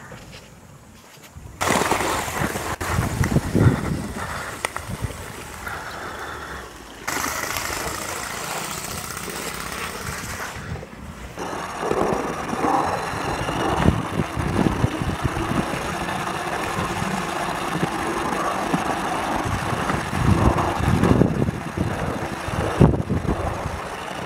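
Running noise of a scratch-built, gas-fired gauge 1 live steam tank locomotive, heard from on board as it travels along the track. The noise starts suddenly about a second and a half in and continues loud and unsteady.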